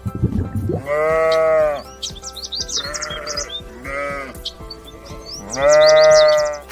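Bleating livestock: two long, wavering bleats about a second each, with shorter bleats between them, over background music.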